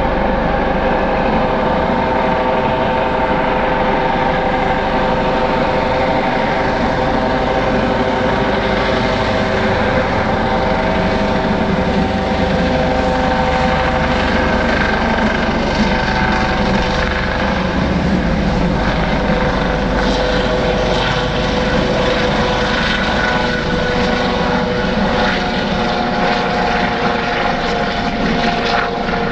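Air ambulance helicopter lifting off and flying away, a steady rotor and turbine drone with a held, pitched whine.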